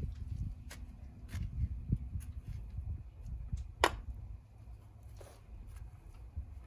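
Hands spreading a layer of soil: scattered rustles and light knocks, with one sharp click about four seconds in.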